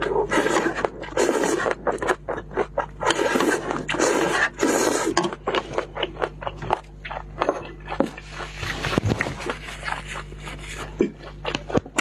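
Close, loud slurping as chopped chilies and spicy noodle broth are sucked off the rim of a tray, in repeated bursts through the first half. After that comes wet chewing and lip smacking with the mouth closed.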